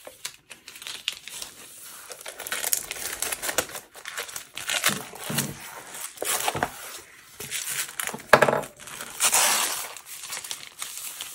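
Plastic sleeves of an A2 presentation folder crinkling and rustling in uneven bursts as a large diamond-painting canvas is pushed into one. The loudest rustle comes about eight seconds in.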